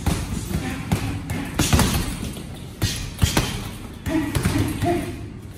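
Boxing gloves punching hanging heavy bags, a run of thuds at uneven spacing, with music playing underneath.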